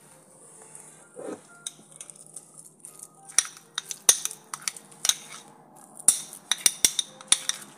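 Metal spoon stirring a thick spice paste in a small ceramic dish, with a soft squish about a second in and then repeated sharp clinks of the spoon against the dish, coming thick and fast in the second half.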